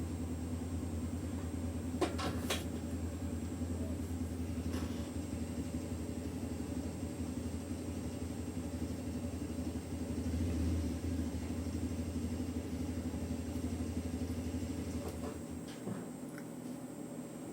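Steady low rumble, like a motor or passing traffic, that drops away near the end, with a few scattered sharp clicks, the loudest about two seconds in.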